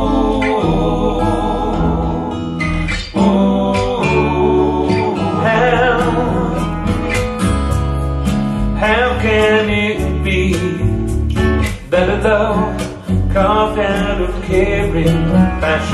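A song with guitar and a singing voice played back through homemade three-way coaxial open-baffle loudspeakers, picked up in the room. The voice comes in more strongly from about five seconds in.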